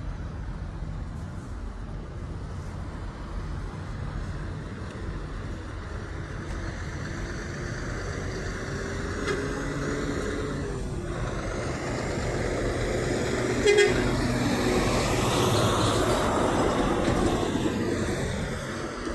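Semi truck approaching and passing with its air horn sounding, its engine and road noise swelling and then easing off near the end.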